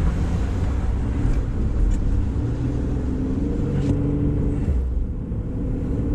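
Vehicle engine and road rumble heard from inside the cab, the engine note climbing in steps as it pulls away from a stop.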